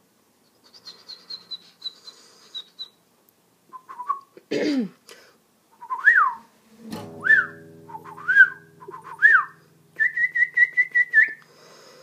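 A person whistling through pursed lips, making playful bird-like noises. A faint high warbling trill comes first, then four quick whistled swoops that rise and fall, then a warbling trill near the end. A faint low steady hum comes in about halfway through.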